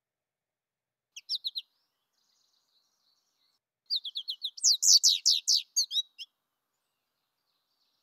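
Recorded American goldfinch calls: a quick group of four high chirps about a second in, then a faster twittering run of high, down-slurred notes from about four seconds in, lasting a little over two seconds.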